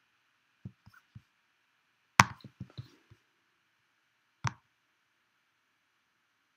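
Scattered clicks and taps from a computer keyboard and mouse, about ten in all, the loudest a sharp click a little over two seconds in, over a faint steady hiss.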